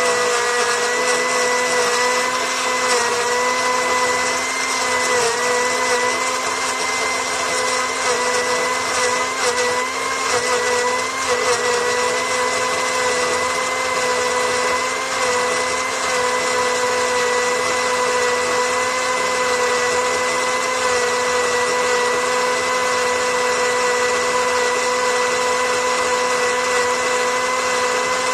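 Electric blender running continuously with a steady high motor whine. Its pitch wavers slightly in the first half, then holds steady.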